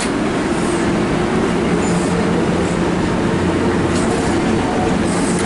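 MARC commuter train's bilevel passenger cars rolling past on the track: a steady rumble of wheels on the rails with a low, even hum.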